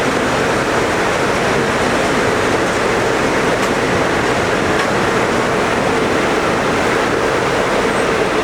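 Passenger train passing at speed close by: a steady, loud rush of wheels on rail with a constant hum, unbroken throughout.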